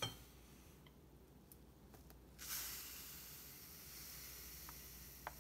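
Granulated white sugar pouring from its bag into a glass measuring cup: a soft, steady hiss that starts about two and a half seconds in.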